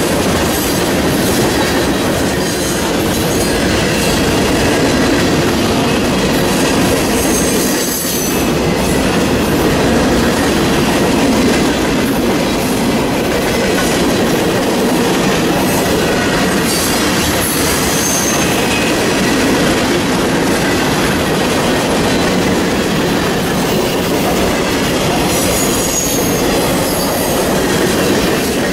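Mixed freight train of tank cars and boxcars rolling past close by: a steady loud rumble and rattle of steel wheels on the rails, with brief high-pitched wheel squeals several times.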